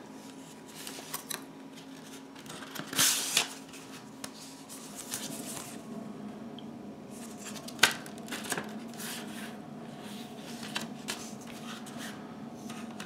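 Hands handling a cardboard mini-LP replica CD sleeve: card sliding and rustling, with a louder rustle about three seconds in and a sharp tap near eight seconds, over a faint steady hum.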